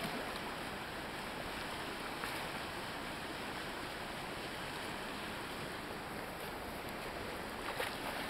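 Steady rush of a flowing river, with a brief splash near the end from a hooked steelhead thrashing at the surface in the shallows.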